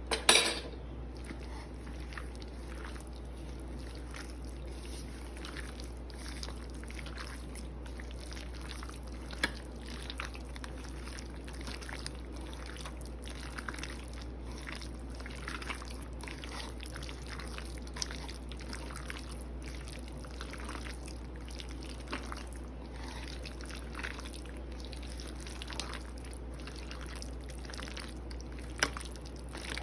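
Kitchen sounds of liquid dripping and light scattered clicks, with a sharp knock right at the start, over a low steady hum.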